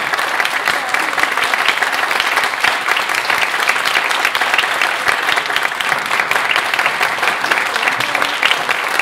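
Audience applauding: steady clapping from many hands, with no break.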